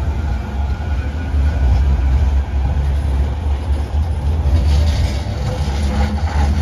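Manchester Metrolink Bombardier M5000 trams running past at close range: a steady low rumble, with a brief rattle near the end.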